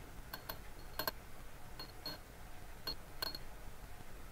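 Faint, light clinks of a metal spatula tapping against a small glass beaker as mica powder is shaken in, about eight scattered taps. Several have a brief high ring.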